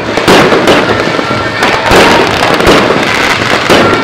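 Fireworks going off: a rapid string of sharp bangs over continuous crackling.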